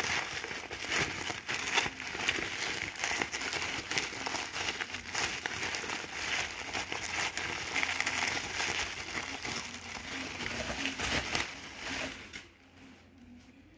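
Plastic bubble wrap crinkling and rustling as it is unwrapped by hand, full of small crackles. It stops shortly before the end.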